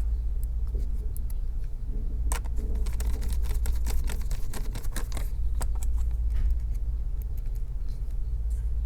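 Small scattered ticks and clicks of a hand screwdriver and screws as the laptop's hinge screws are driven back in, over a steady low hum.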